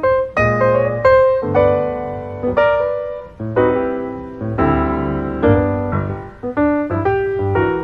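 Background piano music: chords struck every half second to a second, each left to ring and fade.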